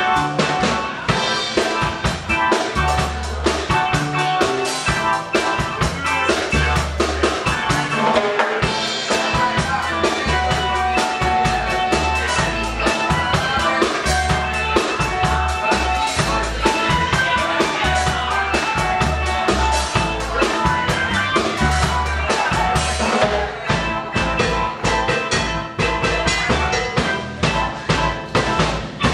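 Music with a drum kit keeping a steady beat over a pulsing bass line and sustained instrument notes.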